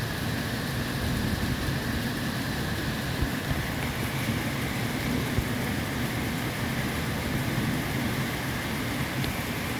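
Steady rain during a thunderstorm, an even rushing hiss with a couple of faint ticks.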